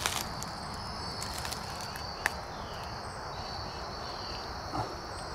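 A steady, high chorus of insects trilling continuously, with a few sharp clicks and a short crackle, the loudest a single click a little past two seconds in.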